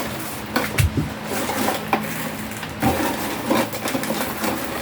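Hands wiring a relay and terminal block: scattered clicks, taps and rubbing as wires and a screwdriver are handled, over a steady low hum.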